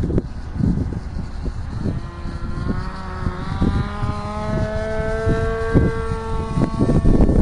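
Stock 480 electric motor and propeller of an E-flite Sea Fury radio-controlled model plane whining in flight. The whine comes in about two seconds in, rises slightly in pitch, holds, and fades near the end. Wind buffets the microphone throughout.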